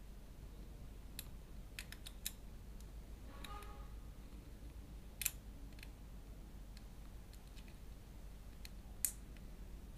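Hard plastic parts of a 1:18-scale Joy Toy action figure and its shield clicking as the shield grip is pressed into the figure's hand: a scattering of sharp clicks, the loudest about five seconds in and again near the end, over a low hum.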